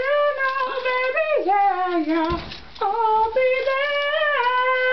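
A young woman singing solo in a small bathroom: two phrases of long held notes that bend in pitch, with a short break a little over two seconds in.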